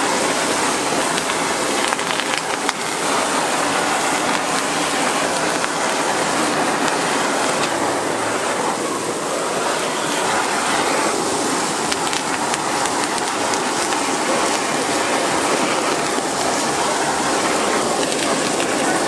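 Steady hiss of a handheld butane torch flaming skewers on a hot griddle, mixed with the sizzle of the griddle, as one continuous, unbroken noise.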